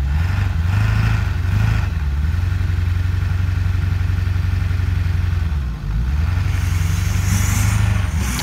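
Diesel pickup engine running hard under load as a truck pulls a stuck pickup on a tow strap. The engine note climbs in the first second, holds steady, sags briefly about two-thirds of the way through, then picks back up.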